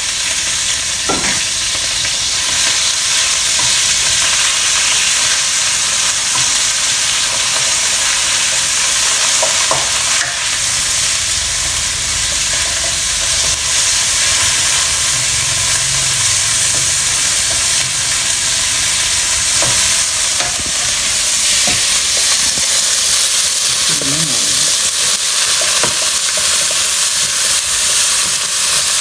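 Pieces of raw pork sizzling in hot oil in a nonstick wok as they are stir-fried with a plastic spatula: a steady high hiss, with the spatula knocking lightly against the pan now and then.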